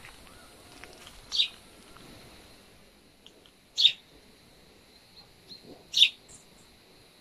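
A songbird calling: three short, sharp high calls, about two and a half seconds apart, over a faint steady high-pitched background.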